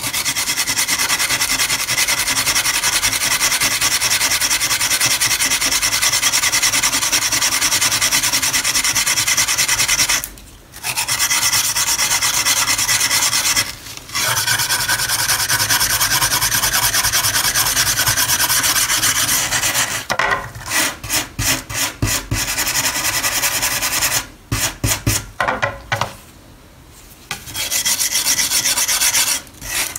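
Metal wire brush scrubbed hard back and forth over a rusty knife blade to strip heavy rust, a dense rasping scrape. It pauses briefly twice, turns to quick separate strokes, about four or five a second, for a few seconds past the middle, stops for a moment, then scrubs steadily again near the end.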